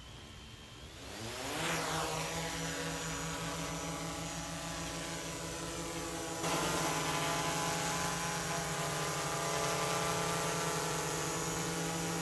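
A small DJI quadcopter's four-inch propellers spinning up about a second in, then running steadily with a buzzing whine of stacked tones, a little louder from about six seconds in.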